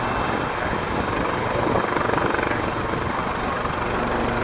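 Westland Lynx twin-turbine helicopter: steady beating rotor chop over turbine noise, loud and continuous.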